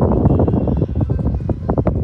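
Wind buffeting the microphone: a loud, uneven low rumble that surges in short gusts.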